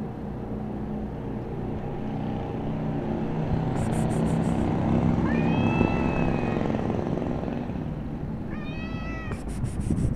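Black tortoiseshell cat meowing twice: a longer meow about halfway through and a shorter one near the end. A low rumble of passing traffic swells and fades beneath.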